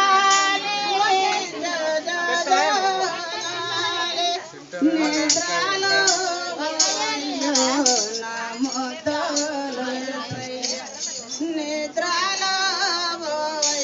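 Women's voices singing a song, with long held notes and a brief drop about four and a half seconds in.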